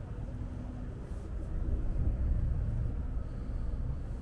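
City street noise: a low rumble, likely from traffic, that swells about two seconds in.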